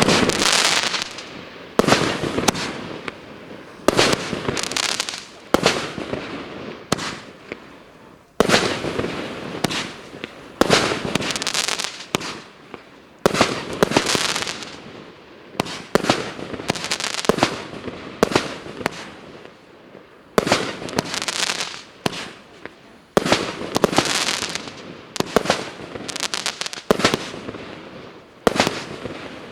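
A 1.2-inch, 36-shot firework cake battery firing shot after shot, about one a second with some closer together. Each shot is a sharp bang followed by a fading tail.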